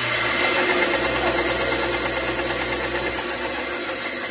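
WEN 3959 9-inch benchtop bandsaw running free with no wood being cut: a steady, kind of loud whir from the motor and blade, with a low hum under it, easing slightly near the end.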